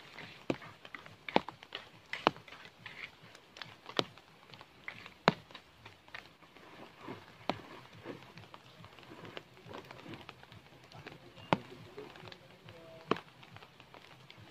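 Woven plastic sack being handled and crumpled, with irregular sharp clicks and crackles scattered a second or two apart.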